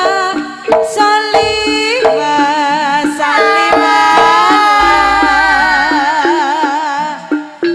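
Live Javanese jaranan band music: a melody with wavering held notes over drum strokes. About halfway through, one long note drifts slowly down.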